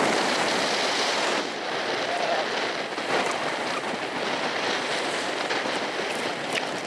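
Steady rushing noise of wind and water aboard a boat, an even hiss with no clear engine tone, easing slightly about a second and a half in.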